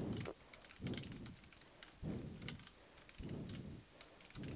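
Typing on a computer keyboard: quick, faint key clicks as a line of code is typed. Soft low puffs come and go about every second and a quarter.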